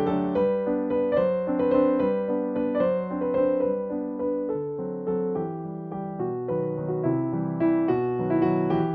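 Background piano music, a steady run of struck notes and chords.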